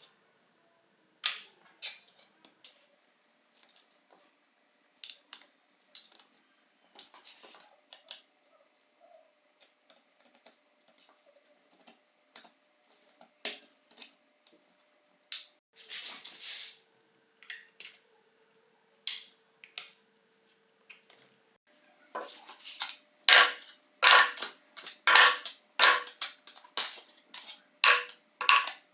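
Small metal parts and hand tools clicking and clinking as the mini cordless screwdriver is handled. Scattered single clicks at first, one longer scrape about halfway, then a dense run of clicks and scrapes over the last seven seconds.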